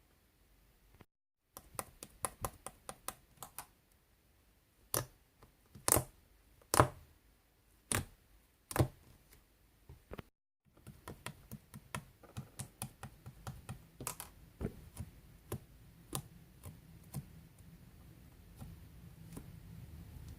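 Light tapping and clicking of small objects being handled, with five louder knocks in the middle. The sound cuts out completely twice, briefly, where clips are joined.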